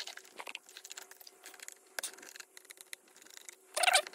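Light clicks and scrapes from handling a hard drive, then near the end a short, loud scratchy rub as a fingertip goes over the drive's paper label.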